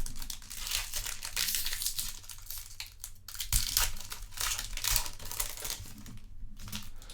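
Foil trading-card pack wrapper crinkling as it is handled and torn open, a dense crackle that eases off about six seconds in.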